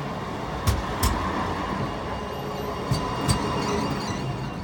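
Tram running along the track, its wheels knocking twice over rail joints as pairs of sharp clicks about a third of a second apart, over a steady rolling rumble.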